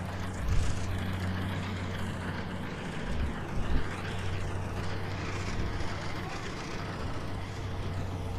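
Farm tractor's engine running steadily as it hauls a loaded trailer of rice sacks, with two short low thumps about half a second and three and a half seconds in.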